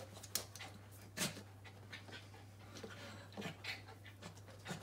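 Pembroke Welsh corgi puppy breathing hard as it panting and sniffing at a watermelon, in short, faint, irregular breathy huffs.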